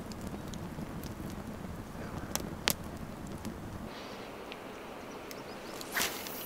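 A small campfire crackling with a few sharp pops over a low wind rumble. The rumble drops away about four seconds in, and a brief swish comes near the end.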